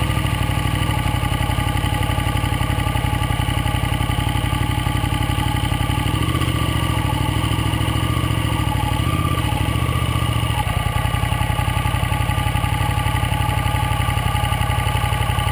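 KTM 950 Adventure's V-twin engine running at low, steady revs as the motorcycle is ridden slowly.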